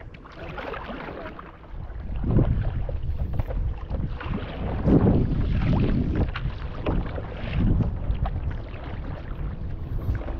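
Stand-up paddleboard paddle strokes splashing and pulling through the water, a stroke every two seconds or so, over a steady rumble of wind on the microphone.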